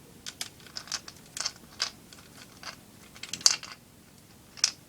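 Light, irregular clicks and ticks of a small screwdriver driving a screw into the casing of an airsoft AK74 magazine, the sharpest click about three and a half seconds in and another near the end.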